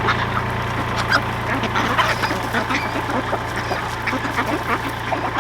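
A mixed flock of farm poultry calling all at once, ducks quacking among chickens, over a steady low hum.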